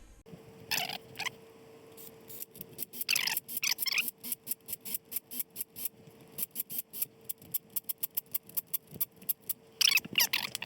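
Power drill spinning nuts down onto the ARP main-cap studs of an LS engine block: a steady motor whine with rapid clicking, several clicks a second, as the nuts snug down.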